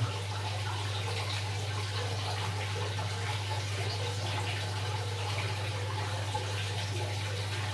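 Tap water from a hose pouring through a colander into an aquarium, a steady splashing rush, over a constant low hum.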